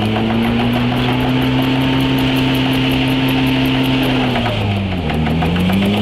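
Vehicle engine running steadily under load while being towed slowly uphill on ice, heard from inside the cab; the revs sag about four and a half seconds in and then pick back up.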